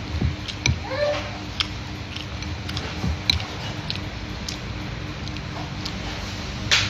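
Close-up chewing of crisp fresh vegetables: scattered short crunches and clicks from the mouth, with a louder crunch near the end. A cat gives a short meow about a second in, over a steady low hum.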